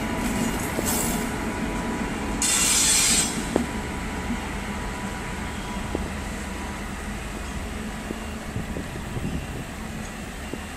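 A WAP7 electric locomotive running light engine over the tracks, its wheels squealing loudly for under a second about two and a half seconds in. A few sharp clacks over rail joints follow, and the steady running noise fades as it moves away.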